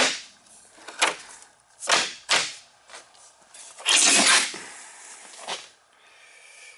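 Wooden chicken crate being handled: a few sharp wooden knocks and clacks, with a louder scraping rattle about four seconds in as the crate's wooden door or slats are moved.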